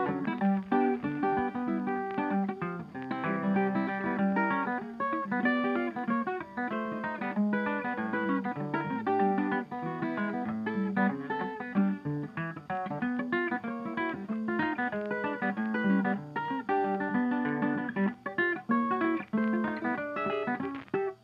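Background music: a quick acoustic guitar piece of rapidly plucked notes.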